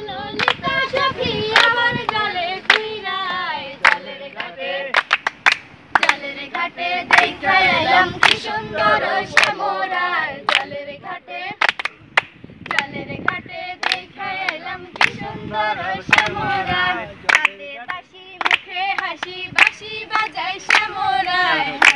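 A group of young women singing a song together without instruments, with hand-clapping keeping a steady beat of a little under two claps a second.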